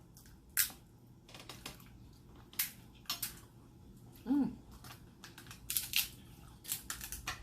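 Snow crab legs being cracked and snapped open by hand: a series of sharp, irregular cracks and clicks of shell, with a short hum from a voice about four seconds in.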